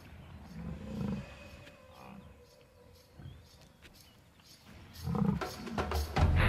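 Lioness growling in a confrontation with Cape buffalo: low growls about a second in, then louder, rougher growls from about five seconds in that build to a loud burst near the end.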